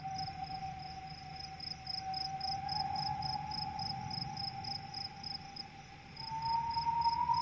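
Dark ambient soundscape: a high, cricket-like chirp pulsing steadily about four times a second over a low rumble, with a single sustained tone that slowly rises in pitch.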